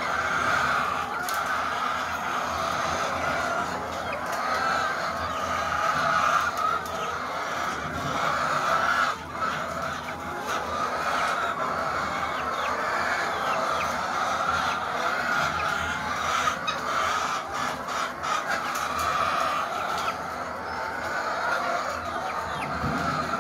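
A flock of caged laying hens clucking continuously in a dense chorus, with occasional short clicks and knocks.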